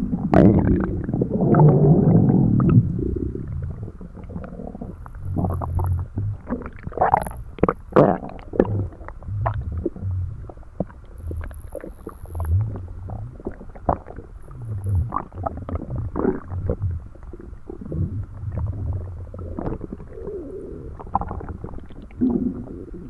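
Human stomach growling and gurgling: a loud low rumble for the first few seconds, then quieter, irregular gurgles, squeaks and short pops.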